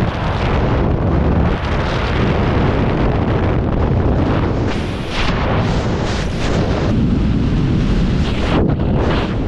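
Freefall airstream blasting across a GoPro's microphone: a loud, unbroken rush of wind noise that swells and dips as the skydiver changes orientation at freefall speed.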